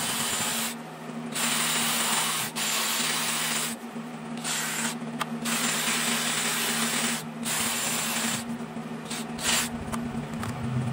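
Cordless grinder with a long-shank burr cutting the cast-iron intake and exhaust ports of a Lincoln V12 flathead block, opening them up to match the gasket. The harsh grinding comes in spurts with short breaks, while the motor's steady whine runs on through the breaks.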